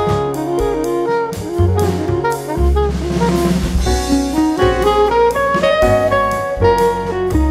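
Jazz background music: a horn melody over bass notes and a drum kit, with a cymbal wash in the middle.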